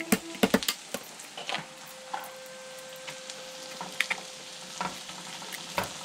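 Steady sizzle of food frying, with scattered sharp clicks and knocks, several in quick succession in the first second.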